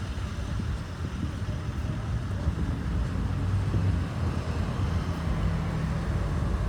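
Road traffic: the steady low rumble of car engines and tyres going by, with wind on the microphone.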